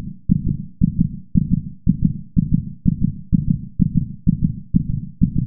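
A steady low thumping beat, about two thumps a second, on the soundtrack of an animation.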